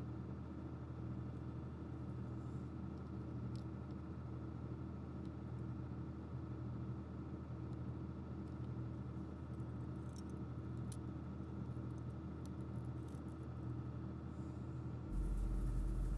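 Steady low electrical hum with a few faint, sharp clicks scattered through it. About fifteen seconds in, the level steps up to a stronger low hum with added hiss.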